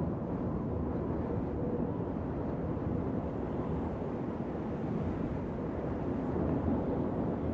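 Wind blowing steadily as a low, unbroken rush, with no gusts or breaks.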